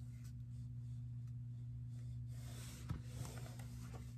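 Quiet room tone with a steady low hum. About two-thirds of the way in come faint rustling and a couple of soft taps as a hardcover picture book is handled.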